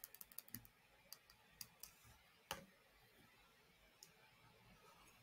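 Faint clicks at a computer: a quick run of them at the start, then a few scattered single clicks, the clearest about two and a half seconds in, with near silence between.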